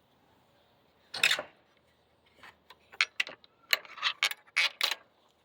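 Rabbits gnawing fruit-tree branches: irregular dry crunching and rasping of teeth on wood, with one scrape about a second in and a quick run of crunches in the second half.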